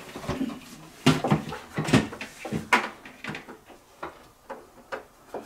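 Irregular plastic clicks and knocks as a refrigerator ice maker and its wiring plug are handled and fitted inside the freezer compartment.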